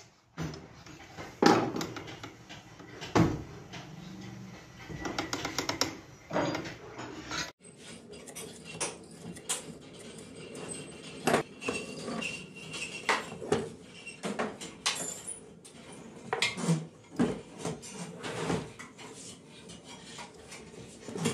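Metal tapping and clinking as a sewing machine head is assembled by hand: a few sharp hammer knocks and a quick run of taps in the first several seconds, then scattered clinks of steel parts and tools being fitted.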